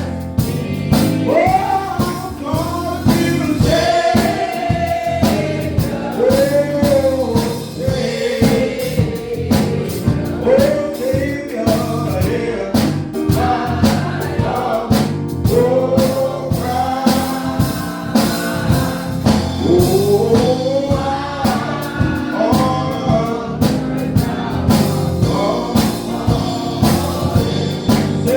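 Gospel singing with an accompanying band, voices holding and bending long sung notes over a steady beat.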